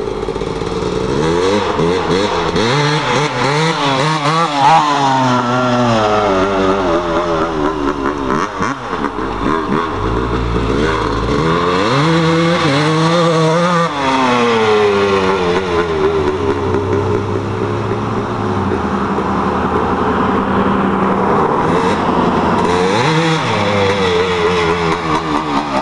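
1996 Suzuki RM250 two-stroke single-cylinder motocross bike with an aftermarket FMF exhaust pipe, being ridden hard. The engine revs rise and fall repeatedly as it accelerates and shifts.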